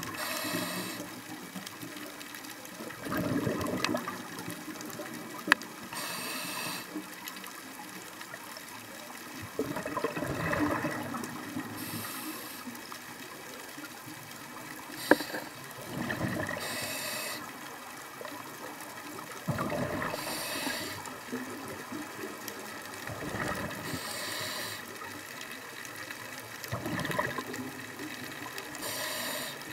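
Scuba breathing through a regulator, heard underwater: slow repeated cycles of a short high hiss on the inhale and a rush of bubbles on the exhale. Two sharp clicks cut through, about five seconds in and again about fifteen seconds in.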